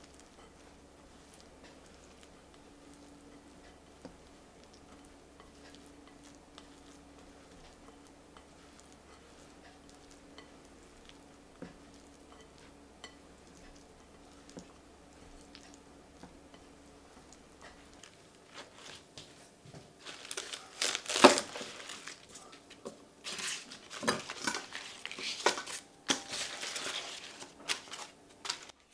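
Faint scraping and light clicks of a spatula folding couscous salad in a glass bowl. Then loud, crisp crackling and snapping as leaves are torn off a head of cos (romaine) lettuce, in irregular bursts with one sharp snap among them.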